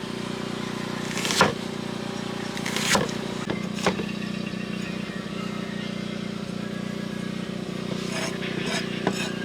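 A steady, engine-like motor hum, with a few short sharp knocks or clatters over it.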